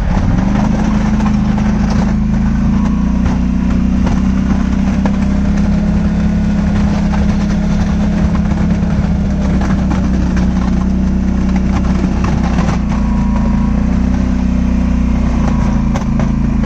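Polaris Sportsman 850 ATV's parallel-twin engine running steadily as the quad drives through snow. Its pitch rises in the first second, holds, and dips slightly near the end.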